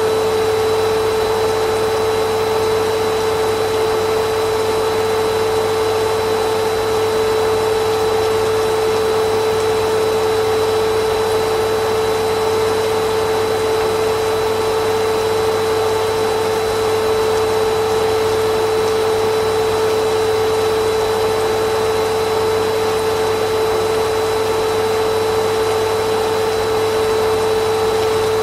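Vacuum cleaner running steadily: a constant rush of air with a steady humming tone that does not change.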